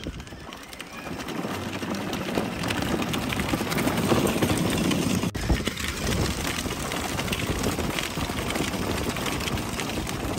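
Six-wheeled electric ride-on toy car rolling over a gravel road, its plastic wheels crunching and rattling on the stones. The sound grows louder over the first few seconds and dips briefly about five seconds in.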